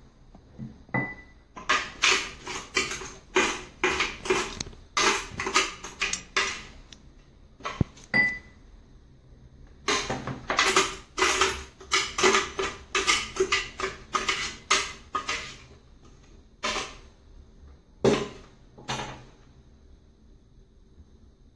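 A spoon scraping and knocking blended parsley pulp out of a plastic blender jar. The strokes come quickly in two long runs, then a few single scrapes near the end, with a couple of short squeaks.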